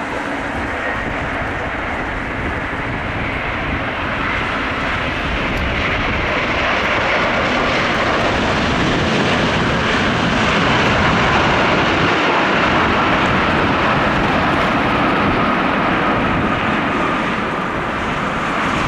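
Airbus A350-900 jet landing, the noise of its Rolls-Royce Trent XWB engines swelling to a peak about halfway through, then easing slightly, with a faint whine that drifts slightly lower.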